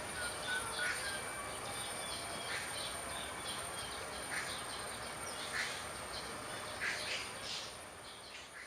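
Birds chirping in short, scattered calls over a steady high-pitched whine, fading out near the end.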